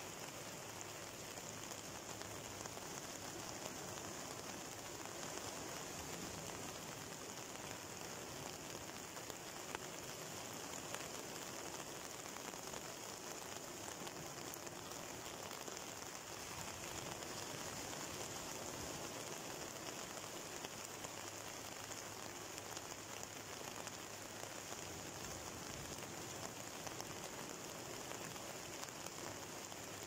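Steady hiss of rain falling, mixed with rough surf washing onto the shore.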